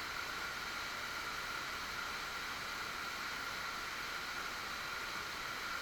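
Steady rushing of a waterfall, an even wash of noise, with a steady high-pitched tone running through it.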